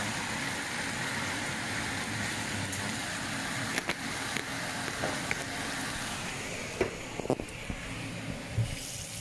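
Metal spoon stirring chopped upo, onion and dried shrimp in a stainless steel pot, with a steady sizzling hiss from the pot that eases off about seven seconds in. Several sharp clinks of the spoon against the pot come in the second half.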